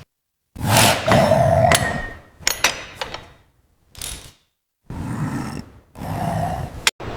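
A string of short mechanical clunks and clatters, as from handling car parts and tools, broken up by abrupt gaps of dead silence.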